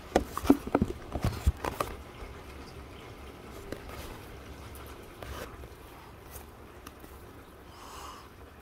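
Steady rain as a faint even hiss. In the first two seconds there is a quick run of sharp clicks and taps, the loudest sound here.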